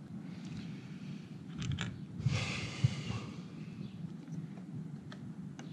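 Faint small clicks of hands working the plastic clip and parts of a Rhino-Rack roof-bar foot, with a breath out about two and a half seconds in, over a low steady background hum.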